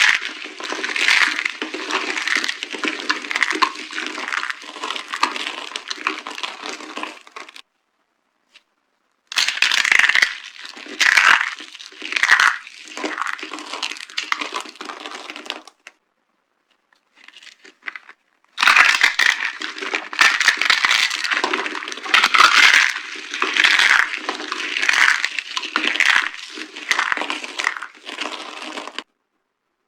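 Dry soap being crushed by hand: dense, crackling crunches in three long stretches, with pauses of a couple of seconds between them. The last stretch stops about a second before the end.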